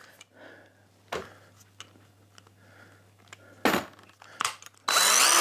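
A few sharp handling clicks, then near the end the Parkside PABS 20-Li E6 20 V cordless drill's motor runs for about a second, its pitch rising and falling with the trigger.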